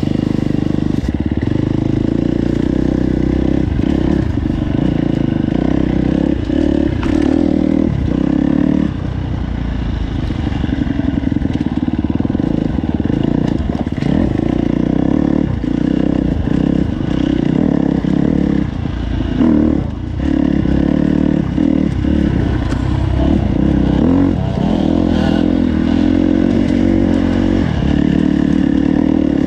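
KTM four-stroke motorcycle engine running as the bike is ridden, the throttle opening and closing again and again, with scattered knocks and clatter.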